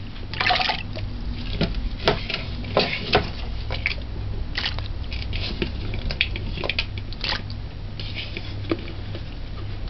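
Pieces of diced fresh coconut being picked out of a metal pot by hand and dropped into a glass blender jug: a run of irregular light clicks and taps, over a steady low hum.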